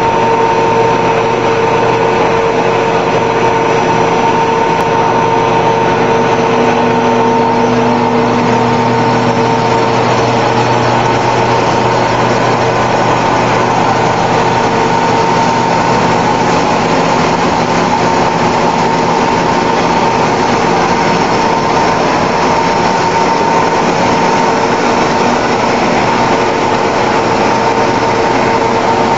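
Snack-food extrusion line running: the twin-screw extruder and its conveyors make a loud, steady drone with a constant high whine and lower hum.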